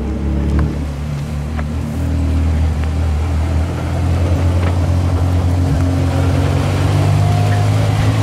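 Porsche Carrera GT's V10 engine with a straight-pipe exhaust, running at low revs as the car rolls slowly past. It is a loud, deep, steady engine note that grows louder from about four seconds in.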